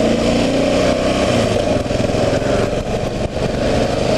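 2009 Kawasaki KLR 650's carbureted single-cylinder engine running at a steady speed while the bike is ridden.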